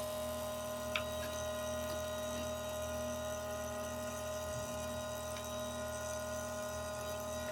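Electric chainsaw chain sharpening machine's motor running unloaded between teeth, a steady hum with one light click about a second in.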